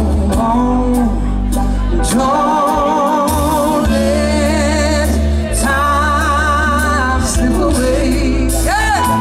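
Live soul band playing on stage: a male lead singer holds long notes with vibrato over acoustic guitar, electric bass and drums.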